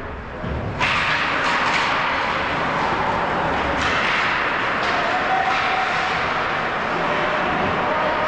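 Ice hockey play in an indoor rink: a steady rough hiss of skates on ice starts suddenly about a second in, with scattered sharp clacks of sticks and puck.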